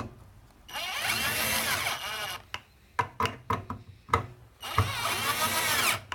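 Power drill driving in screws to snug them up. It runs twice, each time for about a second and a half, with the motor's pitch wavering, and there are clicks and knocks of handling between the two runs.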